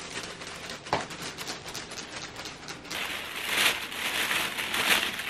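Plastic delivery bag rustling and crinkling as a takeout meal tray is pulled out and handled, with scattered light clicks and a knock about a second in.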